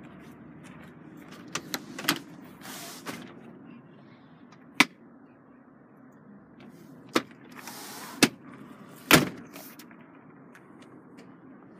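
Handling noises in a car's leather-seated cabin: a scattering of about seven sharp clicks and knocks, the loudest near the middle and about nine seconds in, with two short bursts of rustling.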